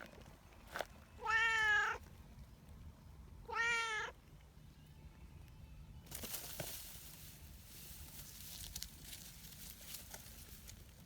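A cat meowing twice, the first call longer and the second shorter about two seconds later.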